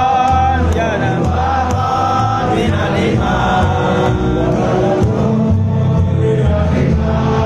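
Group singing of a song over amplified music with a steady bass line.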